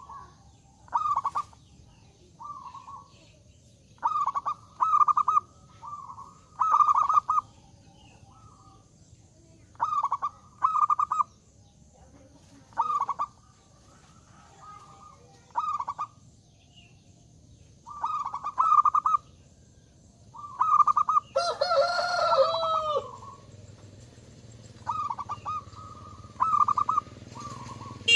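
Zebra dove (perkutut) cooing: short phrases of rolling coos repeated every second or two. A rooster crows once about two-thirds of the way through, louder than the dove.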